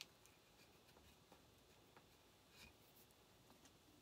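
Near silence, with faint scattered ticks and light rustles of small craft materials being handled; the sharpest tick comes right at the start.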